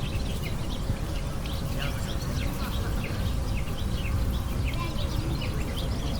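A flock of small birds chirping busily, many short overlapping chirps, over a steady low rumble.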